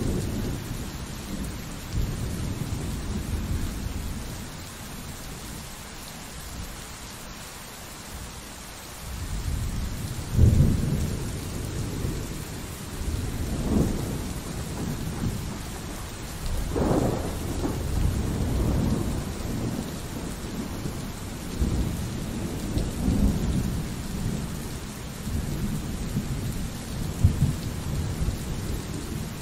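Steady pouring rain with rolling thunder. A low rumble fades away over the first few seconds and there is a lull. A new peal breaks about ten seconds in and keeps rolling, swelling again several times until the end.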